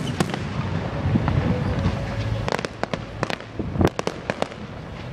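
Fireworks display: a run of sharp bangs and crackling pops in quick clusters, the loudest bang about four seconds in, over a low rumble.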